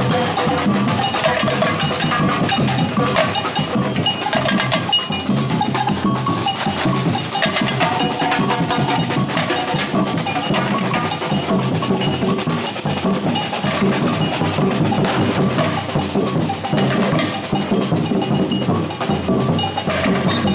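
Batucada samba percussion group drumming, loud and steady throughout.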